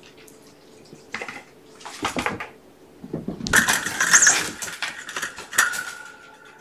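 Kittens playing with toys on the floor, with bursts of rattling, clattering knocks. The clatter is loudest from about three and a half to six seconds in, and a short ringing tone follows the last knock.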